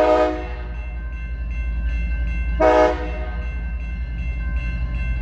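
CSX diesel locomotive horn: a long blast that ends just after the start, then a short toot about two and a half seconds in, over the steady low rumble of the passing locomotives.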